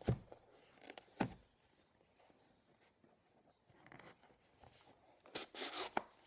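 A small cardboard box handled and opened on a cloth-covered table: two sharp knocks in the first second or so, then quiet, then rustling and scraping of the cardboard with a click near the end as the lid comes open.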